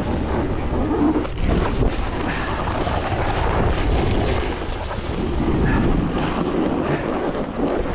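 Wind rushing over the microphone with low buffeting, over the continuous hiss and scrape of a Burton Custom X snowboard sliding and carving on snow during a run.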